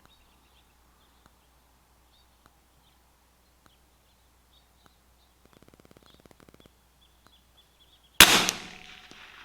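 A single .22 LR rifle shot from a CZ 457 AT-ONE firing Lapua X-ACT match ammunition, about eight seconds in, with a short echoing decay. About two seconds before it there is a brief, rapid clicking.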